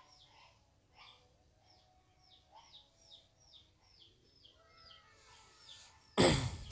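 Small bird chirping over and over, short downward-sliding chirps two or three a second. Near the end a loud, brief rush of noise cuts in.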